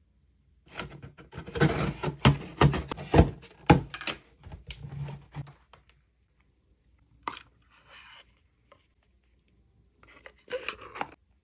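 Cardboard packaging being handled: a run of rustling and scraping with sharp knocks as a shipping box is opened and its contents moved. A few clicks follow, then a short burst of rustling and scraping near the end as a small white paper box is slid open.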